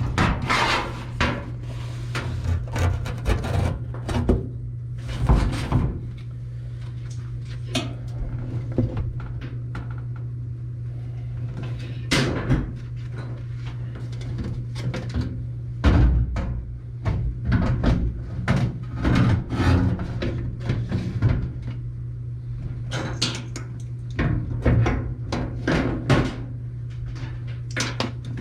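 Irregular knocks, clunks and rattles of hands forcing a washing machine's suspension rod into place and shifting the drum, over a steady low hum.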